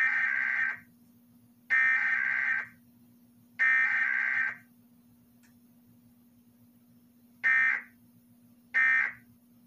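Emergency Alert System SAME data tones on a broadcast Required Weekly Test: three buzzy, warbling header bursts of about a second each, then after a pause of about three seconds, two short end-of-message bursts near the end.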